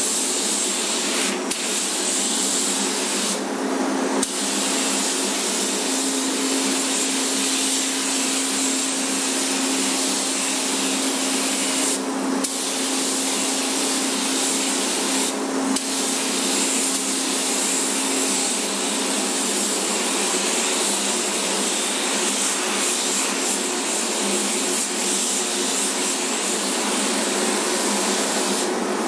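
Steady hiss of a compressed-air paint spray gun spraying paint, with a steady hum underneath. The hiss thins briefly three times.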